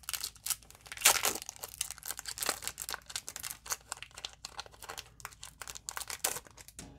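Foil wrapper of a Pokémon trading-card booster pack being torn open and crinkled by hand: a dense run of sharp crackles and rips, loudest about a second in.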